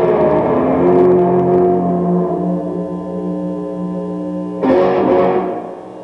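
Guitar chords ringing out, with one last strummed chord a little under five seconds in that then fades: the closing chords of a song.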